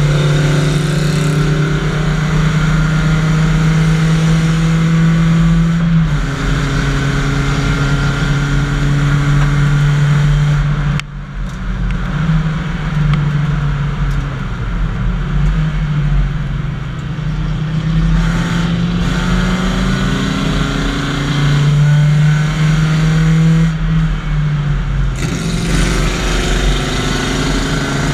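BMW 318i race car's four-cylinder engine heard from inside the cabin, running hard at speed. Its pitch climbs and drops back several times, with a sharp lift about a third of the way in.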